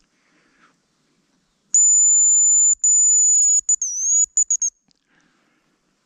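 Hazel grouse decoy whistle blown close by, giving the male's call: a long, very high thin whistle, a second shorter one, a note that dips and rises, then a few quick broken notes.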